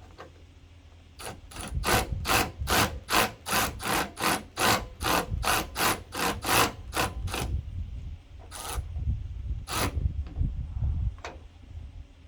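Hand work on a pickup's tailgate assist: a quick run of about fifteen short rasping strokes, roughly two and a half a second, then two more after a pause.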